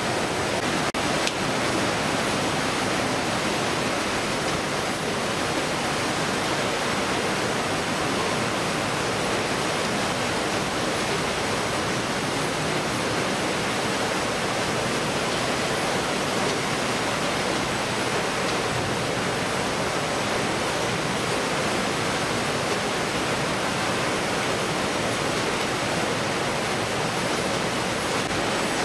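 Steady noise of a fish-processing line's machinery and running water, with no separate clanks or knocks, and a faint steady high whine over it.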